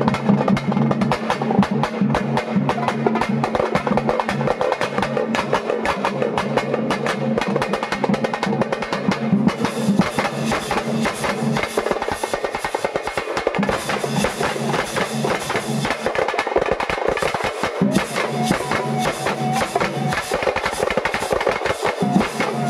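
Music of fast, continuous drumming, with a sustained low tone underneath that drops out briefly a few times.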